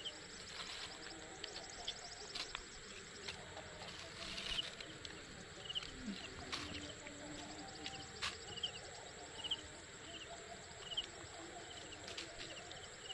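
Faint outdoor ambience with a short high chirp repeating about once a second. Scattered soft clicks and crackles come from fruit being peeled by hand and a plastic bag being handled.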